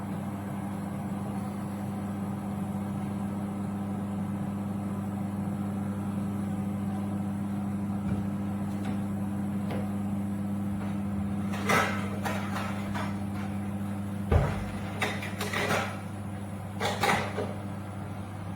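Portable induction hob at full 2 kW power with water boiling in the pot: its cooling fan and the hum of the induction coil under the pot give a steady drone. About two-thirds of the way through come several clattering knocks and one heavy thump, typical of the pot and its lid being handled on the hob.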